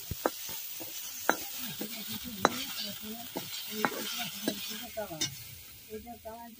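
Pork curry sizzling in a pan as it is stirred, with irregular sharp knocks and scrapes of the stirring utensil against the pan about once a second.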